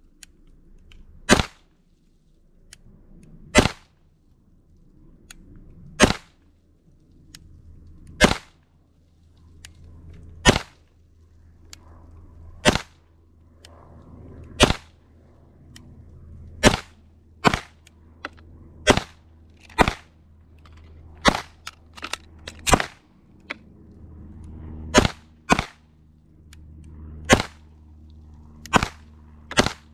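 Pistol fired as a slow string of single shots, about one every two seconds at first and closer together later, around twenty rounds in all: a slow-fire qualification string shot for accuracy with no time limit.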